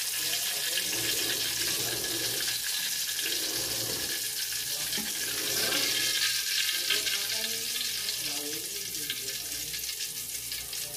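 Hot cooking oil sizzling and crackling in an aluminium wok where daing (dried salted fish) has just been fried, with a metal spatula working in the pan as the fish is lifted out. The crackle swells a little midway.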